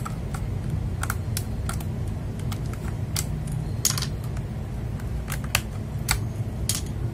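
Scattered, irregular clicks of plastic keycaps and switches on an FL Esports MK870 mechanical keyboard as keys are pressed and handled. There is a steady low hum underneath.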